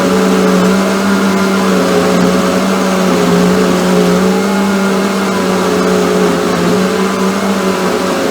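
Philips countertop blender motor running steadily at one even pitch, blending a smoothie.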